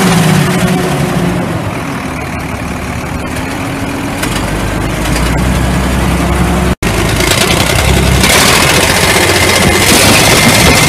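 International DT466E inline-six turbo diesel idling steadily. About two-thirds of the way through the sound cuts out for an instant and comes back louder and hissier, with a faint high whine over the engine.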